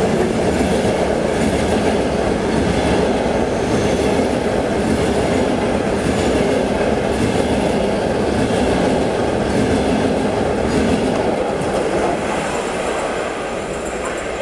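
Frecciabianca electric passenger train passing close by on the platform track, with a steady rumble of its wheels clattering over the rails. The sound eases a little near the end as the last cars go by.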